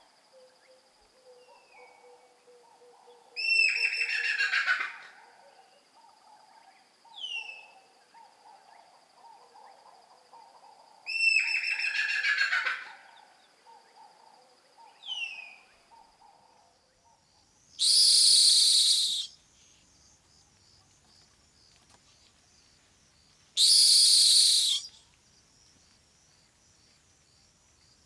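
Rock hyrax calling: two long wailing cries with a clear pitch, then two harsh, noisy screams, each about a second and a half long. Short falling whistles sound between the first calls, and a steady high-pitched tone runs in the background until partway through.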